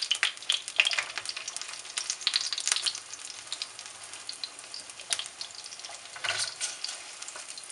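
Syrniki (cottage cheese pancakes) frying in hot vegetable oil in a skillet, sizzling steadily with frequent sharp crackles and pops. A slotted spatula slides under one pancake and flips it over partway through.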